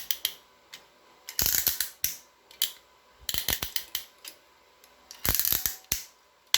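Ratcheting pass-through RJ45 crimp tool clicking as its handles are worked, in four short bursts of rapid clicks about two seconds apart.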